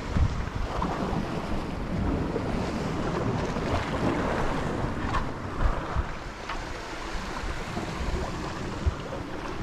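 Wind buffeting the microphone over the wash of sea waves, a steady rushing noise with low rumble.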